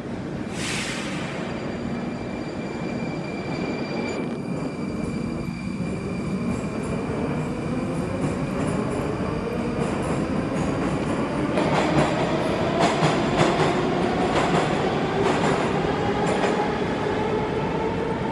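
Moscow metro train pulling out of the station, its traction motors whining and rising steadily in pitch as it gathers speed, the noise growing louder. From about two-thirds of the way through, the wheels clatter over rail joints in a run of clicks.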